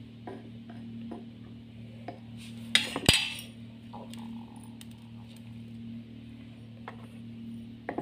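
Small clay lid clinking and clattering against the rim of a miniature clay pot as it is lifted and set back, with the loudest clatter about three seconds in and a few lighter clicks before and near the end. A steady low hum runs underneath.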